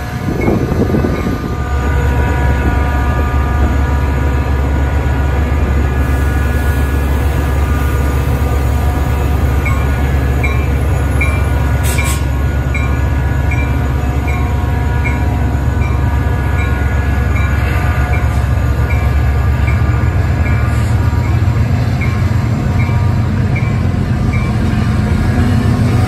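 Metra commuter train passing close by: its diesel locomotives run with a heavy, steady drone over the rumble of the bilevel cars on the rails. A light ding repeats about twice a second through the middle stretch.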